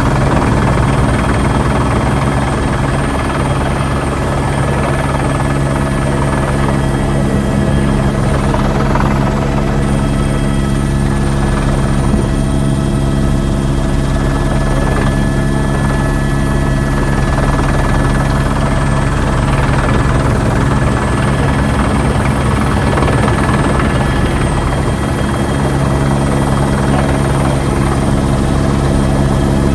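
Police helicopter's rotor and turbine engine running steadily, heard from inside the cabin as a constant loud drone with a steady whine.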